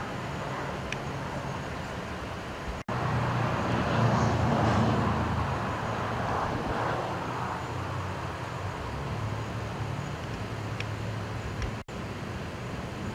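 Vehicle engine running at idle with road traffic noise, swelling louder for a few seconds about three seconds in; the sound drops out for an instant twice.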